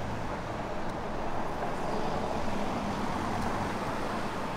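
Road traffic noise: a vehicle going by, growing a little louder through the middle and then easing off.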